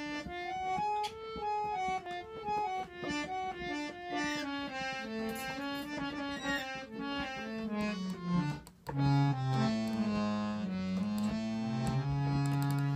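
Harmonium playing a stepping melody over held notes; after a brief break about eight and a half seconds in, it sustains low chords.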